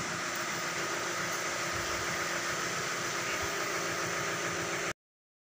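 A machine running steadily, an even hiss over a low hum, which cuts off abruptly near the end.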